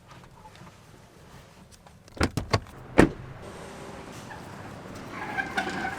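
Three quick knocks, then a single loud thump about a second later.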